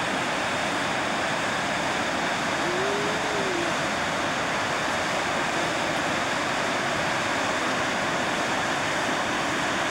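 Waterfall pouring over rock, heard up close as a steady, loud rush of falling water.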